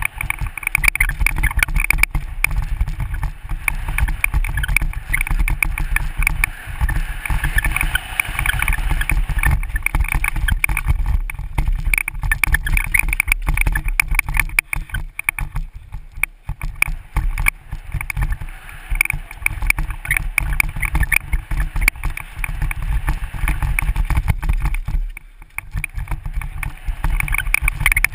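Mountain bike descending a rough dirt trail at speed: wind buffeting the microphone and a constant dense rattle and clatter of the bike and tyres over rocks and roots. It eases briefly near the end before picking up again.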